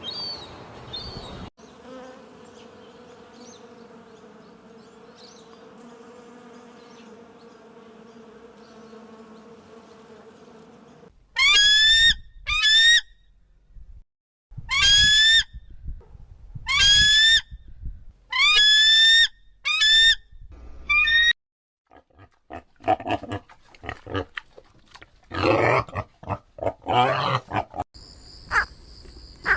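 A series of different animal sounds: a steady droning hum for several seconds, then a run of loud calls, each rising in pitch, about one a second, then rougher grunting calls.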